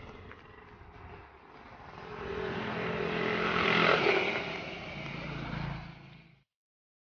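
A motor vehicle drives past, its engine getting louder to a peak and then fading away, before the sound cuts off suddenly.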